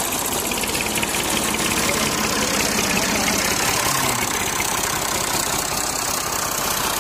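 Massey Ferguson tractor's diesel engine idling steadily with a fast, even pulse.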